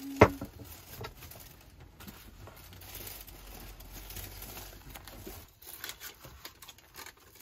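Thin plastic carrier bag rustling and crinkling as takeout is unpacked onto a table. A sharp knock sounds about a quarter second in, and a hummed note ends at the very start.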